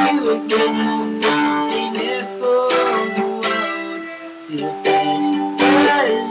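A strummed acoustic string instrument playing chords in a steady rhythm, about two strums a second.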